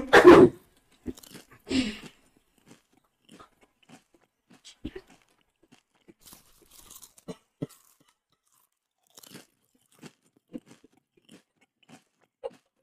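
Close-up chewing and crunching of chicken feet: a loud crunch right at the start and another about two seconds in, then faint, scattered chewing clicks.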